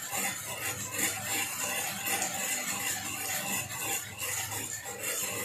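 Numbered balls tumbling and rattling inside a hand-cranked wire bingo cage as it is turned, a steady rattle.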